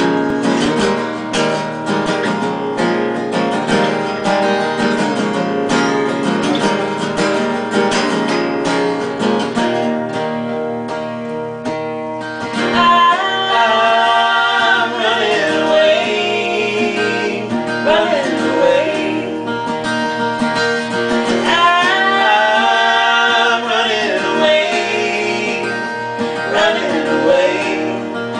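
Two acoustic guitars strumming a song, joined about halfway through by a man and a woman singing together.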